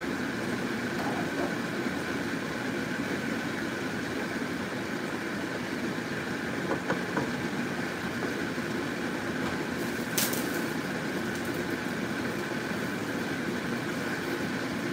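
Steady whir of a kitchen range hood fan over a pot of broth simmering on the stove. Two light knocks come about seven seconds in, and a sharp click just after ten seconds.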